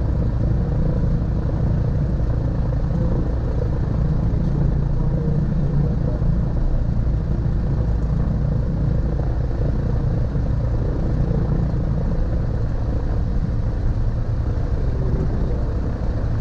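Twin-engine piston airplane's engines and propellers running at low taxi power, a steady, even engine noise heard from inside the cabin.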